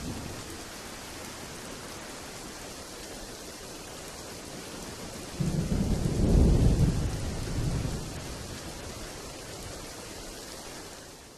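Steady rain hissing, with a low roll of thunder coming in about halfway through, swelling for a second or so and dying away over the next two. The rain fades down near the end.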